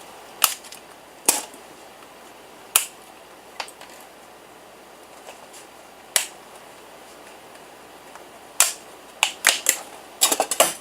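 Sharp clicks and clacks of desktop PC parts being handled and pried apart, single snaps a second or more apart, then a quicker run of clicks near the end.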